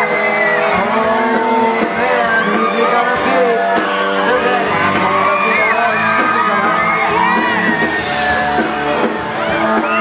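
Amplified pop music with a singer on a microphone over a PA, and a crowd of young fans screaming and whooping over it.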